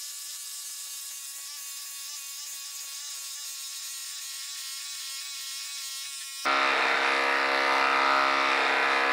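DeWalt DCF850 Atomic brushless impact driver hammering a 3/8-inch lag screw into dense wood, fast-forwarded so its rapid impacts run together into a steady buzz. The buzz grows much louder about six and a half seconds in as the lag is driven home.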